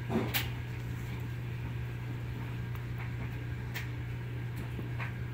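Steady low hum, with a few light taps and rustles from a cat pawing at a feather toy on bedding, the loudest just after the start.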